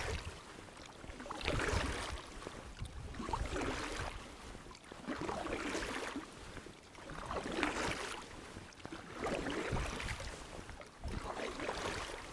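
Oars of an inflatable rowing boat dipping and pulling through the water, a splash and swish on each stroke, about one stroke every two seconds.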